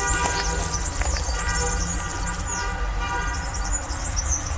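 Outdoor ambience: a low rumble throughout, a steady pitched horn-like tone held for about three seconds, and small high chirps.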